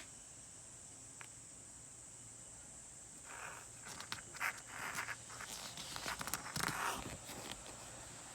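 Faint steady hiss, then about three seconds in a run of irregular rustling and scuffing noises with small clicks that lasts about four seconds before dying away.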